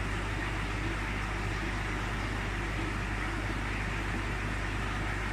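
Steady low hum under an even hiss from a marine aquarium system's pumps and circulating water, unchanging throughout.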